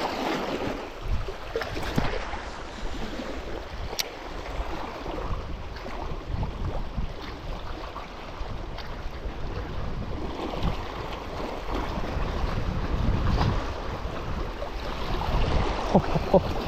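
Sea waves washing against the shore, with wind buffeting the microphone in gusts. A single sharp click sounds about four seconds in.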